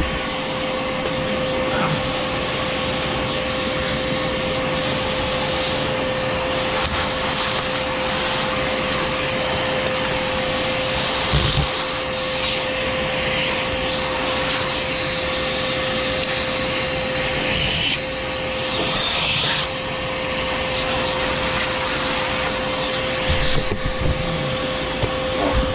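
Bauer 14-gallon 6 hp shop vacuum running steadily as it vacuums, with a constant whine over the rush of air. The air noise shifts in tone at times, and there is a brief low bump about eleven seconds in.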